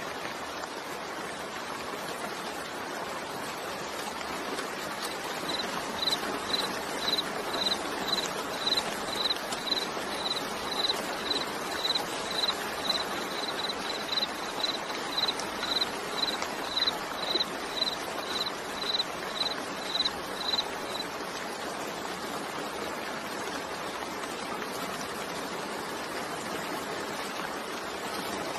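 Steady heavy rain. Through the middle of it comes a regular, high, single-pitched chirping, about two chirps a second for some fifteen seconds.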